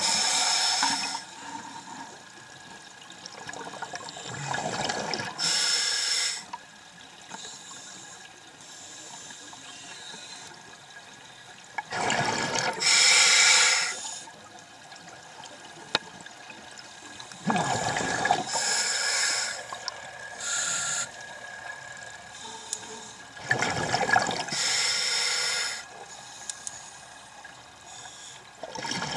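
Scuba regulator breathing heard underwater: each breath a hiss through the regulator and a rush of exhaled bubbles, about five breaths spaced some six seconds apart, with a faint steady hiss of water between.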